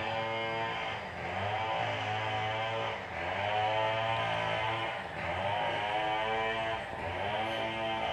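Background music: a plucked-string instrumental whose phrases repeat about every two seconds.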